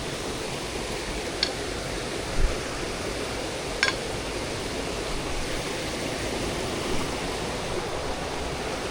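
Steady rushing of waterfall water, with a few brief knocks about a second and a half, two and a half and four seconds in.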